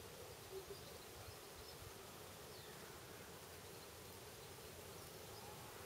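Faint buzzing of a flying insect, strongest in the first second, over the quiet, even hiss of a slow spring-fed stream.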